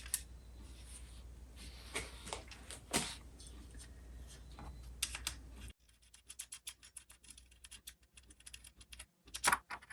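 Light clicks and taps of small metal parts and hand tools being handled on a workbench, with a quicker run of faint clicks from about six seconds in and a few sharper knocks near the end.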